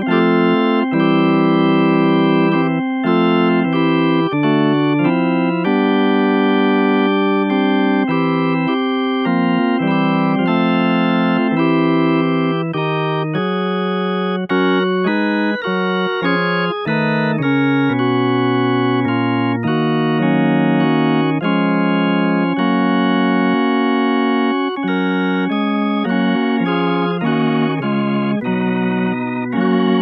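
Virtual Hammond B3-style tonewheel organ playing sustained chords and lines, the notes changing every second or so. Near the end the tone starts to warble from its rotary speaker emulation.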